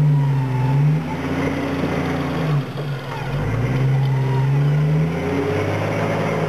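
Rock crawler's engine revving under load as it climbs a steep rock ledge, in two long pulls. It eases off about two and a half seconds in, picks up again a second later, and drops back after about five seconds.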